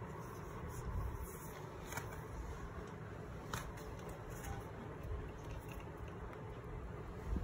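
Faint handling noise of an iPad being lifted off its keyboard case and turned over: a few soft clicks and rubbing, over a steady low background hum.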